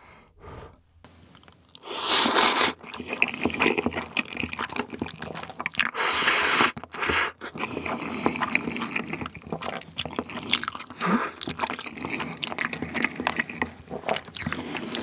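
Close-miked eating of jjapaghetti black bean sauce noodles. There are two long noodle slurps, about two and six seconds in, then steady wet chewing with many small mouth clicks.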